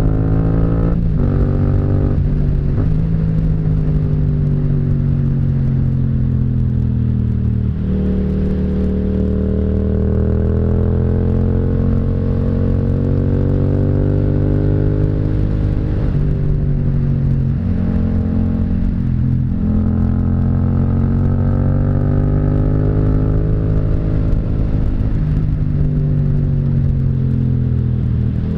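Yamaha MT-07's 689 cc parallel-twin engine running under way. Its pitch rises and falls, with several sudden steps as the rider changes gear and rolls on and off the throttle through curves.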